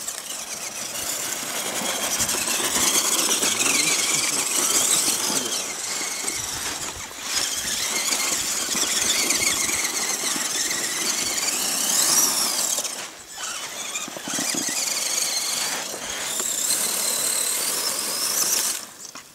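Radio-controlled off-road truck's motor and gears whining hard under throttle as it climbs a steep slope, the pitch wavering up and down. The whine drops out briefly a few times and cuts off just before the end.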